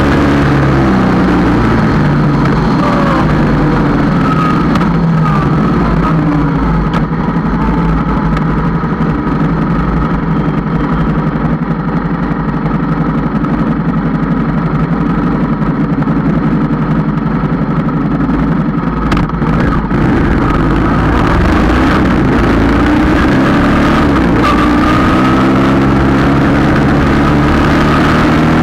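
Yamaha Tracer 700's 689 cc parallel-twin engine running as the motorcycle rides along, heard close to the right footpeg. Its pitch climbs as it pulls near the start and again over the last several seconds, and it runs more steadily in between.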